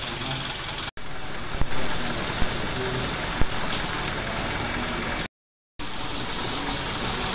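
A water tanker truck's engine runs steadily while water gushes from a ribbed delivery hose into a plastic storage tank. The steady noise cuts off abruptly twice, once very briefly and once for about half a second.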